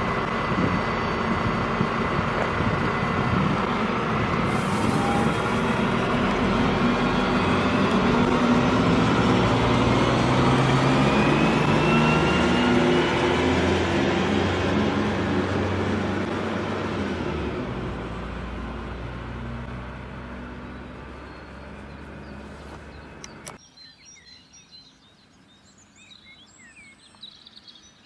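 Diesel engine of an agilis Regio-Shuttle RS1 railcar accelerating away, its note climbing in pitch as it picks up speed and then fading as it draws off. About 23 seconds in it cuts off abruptly, leaving a quiet background with birds chirping.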